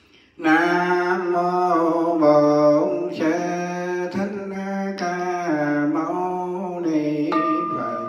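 A Buddhist monk chanting solo into a microphone, holding long notes that step up and down in pitch in phrases of a second or so. About seven seconds in, a bell is struck once and rings on steadily.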